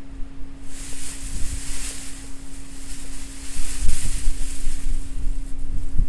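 Gusty typhoon wind buffeting the microphone in uneven low rumbles, with a rushing hiss of wind that rises a little under a second in and fades near the end.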